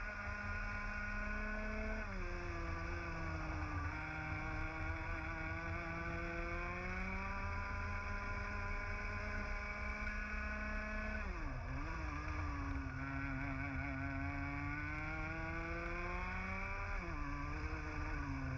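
125cc two-stroke TAG kart engine at race pace, heard onboard. Its pitch climbs steadily along the straights and drops sharply as the driver lifts off for corners, about two seconds in, just past halfway and near the end.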